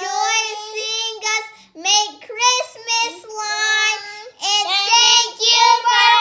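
Young girls singing together without instruments, a series of held notes with short breaks between phrases.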